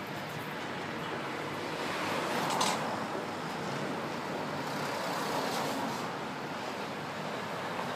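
Steady street traffic and engine noise, swelling to a peak about two and a half seconds in as a vehicle passes.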